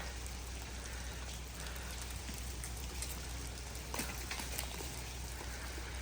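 Steady outdoor patter of falling drops, with scattered faint sharp ticks; one tick about four seconds in stands out.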